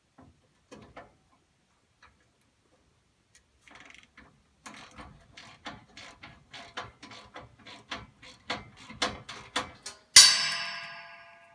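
Hand tool clicking in a steady rhythm of about three clicks a second, growing louder, as a part is fastened in a gas furnace. Near the end comes one loud metallic clang that rings and fades.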